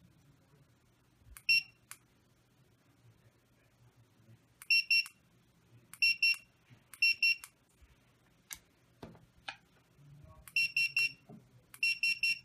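Validator 50 handheld barcode reader beeping as it reads a 2D barcode on a card. It gives a single beep, then several short double beeps, then two quicker triple beeps near the end as the reader flags a mismatch. A few light clicks fall in between.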